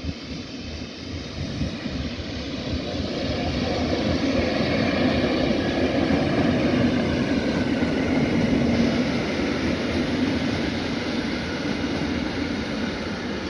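Electric multiple unit passing close by: a steady rumble of wheels on the rails and running gear that builds over the first few seconds, is loudest in the middle, then slowly eases as the train draws away.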